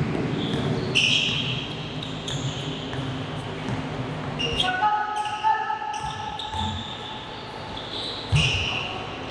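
Basketball game in a large hall: sneakers squeak sharply on the court several times and a ball thuds on the floor near the end, over players' voices. A held tone with several pitches sounds for about two seconds midway.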